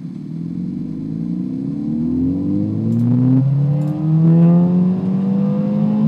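Recording of a 2014 Ford Fiesta ST's 1.6-litre turbocharged four-cylinder accelerating at wide-open throttle, played back in the room: the engine note climbs steadily in pitch, dips once about three and a half seconds in, climbs again and cuts off abruptly at the end.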